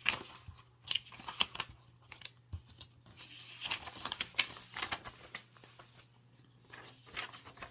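Irregular rustling and scraping with sharp clicks, in short clusters, over a steady low hum.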